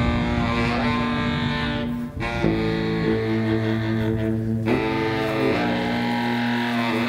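Music: layered, effects-processed saxophones holding long sustained notes, the chord shifting about every two seconds, with a brief break a little after two seconds in.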